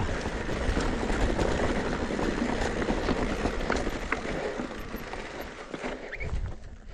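Wind buffeting the microphone: a steady rush of noise, heaviest in the low end, that eases off near the end.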